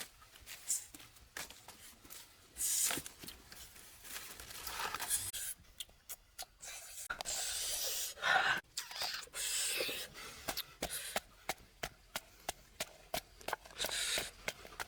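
Food being handled and cut by hand: scraping, tearing and rustling with many short taps, and a quick run of regular taps near the end.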